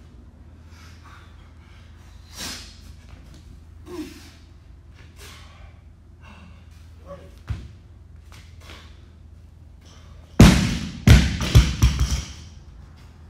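Barbell loaded with black bumper plates dropped onto a rubber-matted gym floor after a clean and jerk: one heavy thud about ten seconds in, then several smaller bounces. Short, sharp breaths from the lifter come earlier, during the lift.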